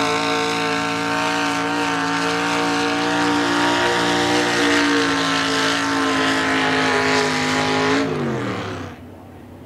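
Pickup truck engine held at high revs under heavy load as it pulls a weight-transfer sled: a loud, steady drone. About eight seconds in, the pitch slides down as the revs fall away, and the sound fades within a second.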